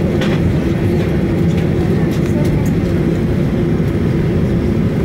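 Steady cabin drone of a Boeing 737-800 taxiing with its CFM56-7B engines at idle: an even low rumble with a held hum. A few faint clicks sound above it.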